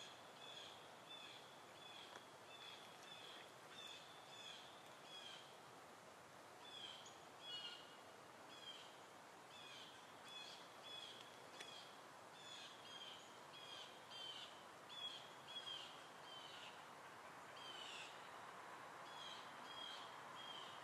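Faint birdsong: a bird repeating a short chirping note about twice a second over a soft background hiss.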